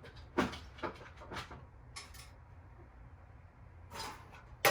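Scattered knocks and clinks of gas patio heater parts and hardware being handled and fitted together, about half a dozen separate hits, the sharpest about half a second in and right at the end.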